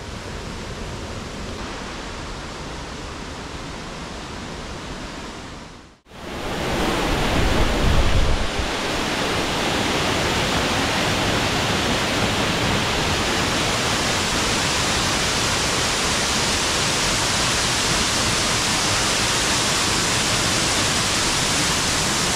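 Rushing white water of the Borovniščica stream and its waterfalls, running high. About six seconds in it cuts out for a moment and comes back louder, with a low rumble for a second or two, then holds steady.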